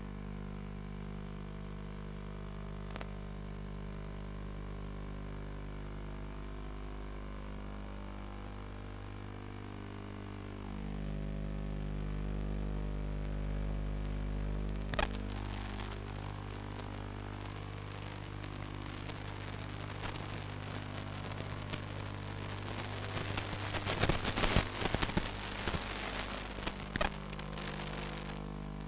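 Steady electrical hum and hiss on an analog FPV video link's audio channel, with crackling static and clicks building in the second half and densest a few seconds before the end.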